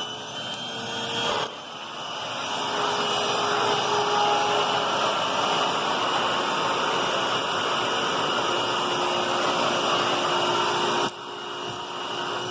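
Hoover WidePath Tempo upright vacuum cleaner running and picking up dirt through its hose: a steady motor whine with a high tone over a rush of air. The sound dips about a second and a half in, then builds, and drops suddenly near the end.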